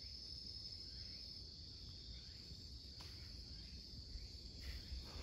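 Steady, high-pitched drone of insects calling from roadside vegetation, with a faint low rumble beneath and one small click about three seconds in.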